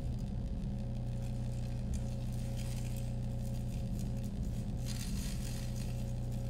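Steady low electronic drone from a wearable sensor sonifying the performer's galvanic skin response, with a scratchy, crackling texture over it that thickens about five seconds in.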